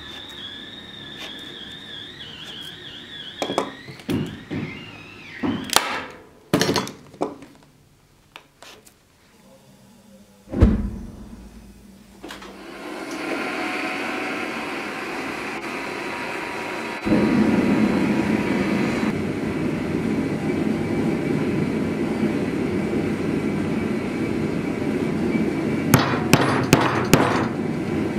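A series of knocks and a heavy thump, then a propane gas forge's burner running with a steady roar that gets louder partway through.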